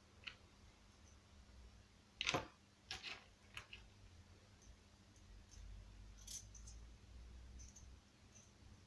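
Scattered light metallic clinks and knocks of small metal parts and tools being handled, the loudest about two seconds in, with a few more clicks after it.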